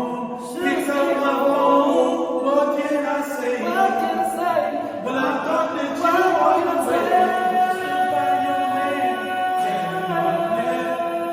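A group of voices singing in harmony, holding long notes.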